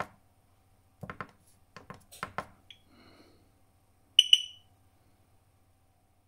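A few soft clicks from the keypad buttons of a Husqvarna Automower 315 robotic lawnmower being pressed, then about four seconds in a short, high double beep from the mower, the loudest sound here.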